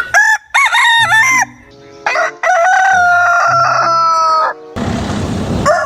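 Rooster crowing: a few short rising notes, then one long drawn-out note that sinks slightly in pitch. It is followed near the end by a short burst of hissing noise.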